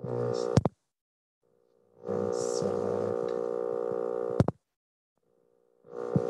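A steady buzzing hum with several overtones that cuts in and out: briefly at the start, for about two and a half seconds in the middle, and again near the end. Sharp computer-mouse clicks come at the ends of the buzzing stretches.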